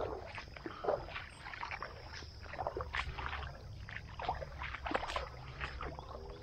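Kayak paddle strokes in shallow water: irregular small splashes and drips from the blade dipping in and lifting out.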